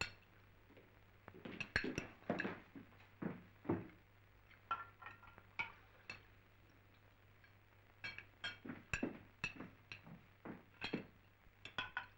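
Tableware clinking during a meal: forks and spoons tapping on plates, with glass knocks, in scattered irregular clicks that come thickest in two spells, early and in the second half, over a faint steady low hum.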